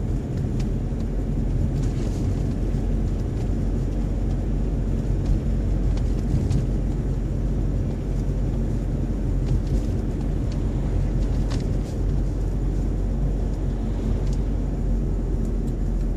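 Steady low rumble of a car's engine and tyres on the road, heard from inside the cabin while driving, with a few faint clicks.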